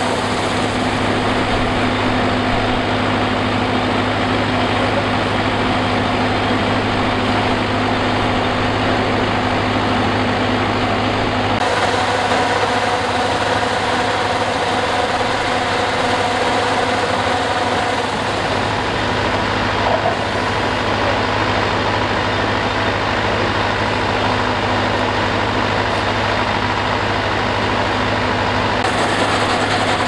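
Zoomlion crawler combine harvester running steadily at a standstill while its unloading auger discharges rice grain through the spout into a sack: a constant engine hum with steady machine tones over it.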